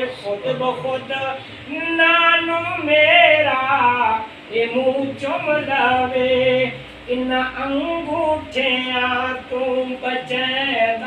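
One voice singing a devotional chant in long, wavering held notes, phrase by phrase, with short breaks between the phrases.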